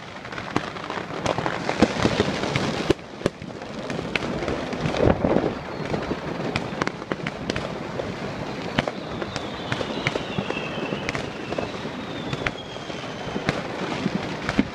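Many fireworks and firecrackers going off at once in a dense, continuous crackle of bangs and pops, with a high whistle falling in pitch about ten seconds in.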